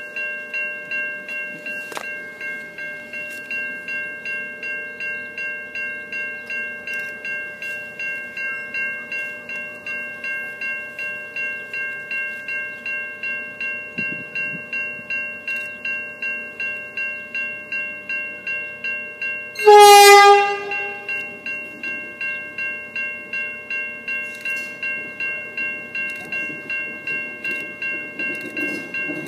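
Level crossing bell ringing steadily, about two and a half strikes a second. About two-thirds of the way through, the approaching Adelaide Metro 4000-class electric multiple unit sounds its horn once for about a second, and the train's rumble on the rails grows near the end.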